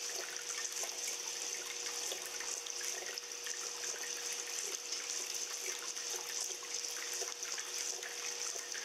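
Water running and trickling steadily, with many small splashes and drips, over a steady hum.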